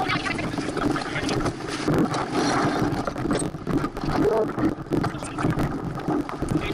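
Small sailboat under way: wind buffeting the microphone and water rushing past the hull, with scattered knocks from crew and rigging as the boat tacks.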